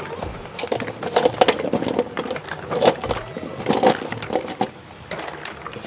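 Dried coconut pieces clattering and knocking against each other and the stone mortar of a wooden oil press (chekku) as they are tossed in by hand, a little at a time. The knocks come thick and fast, then thin out near the end.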